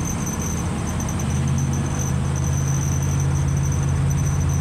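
A 1958 Chevrolet 3600 truck's GMC 370 V8 engine droning steadily under way, heard from inside the cab along with road noise; about a second in, the engine note firms up and gets slightly louder.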